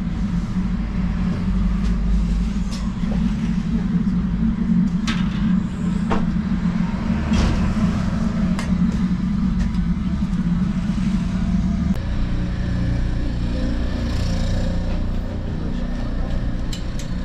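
A steady low roar throughout, changing about two-thirds of the way in, with a few sharp metallic clicks and scrapes from the long iron hooks and rods of a tandoor oven as naan is worked in and pulled out.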